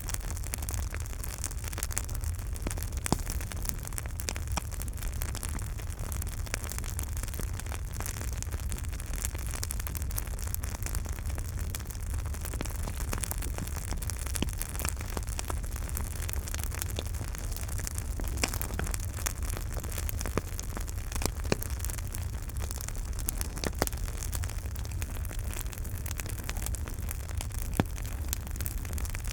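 Campfire burning with a steady low rumble and hiss of flames, crackling with frequent small pops and a few sharper, louder ones scattered throughout.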